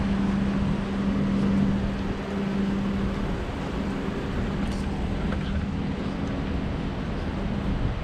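A steady low engine hum running throughout, with wind noise on the microphone.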